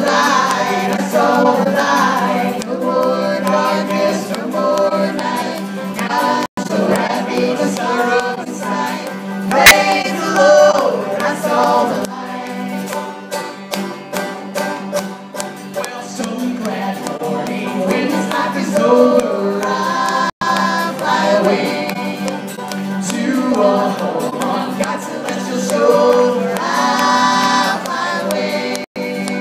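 Live acoustic gospel music: banjos and acoustic guitar strummed and picked under a woman's lead voice with others singing along. A single sharp pop cuts through about ten seconds in.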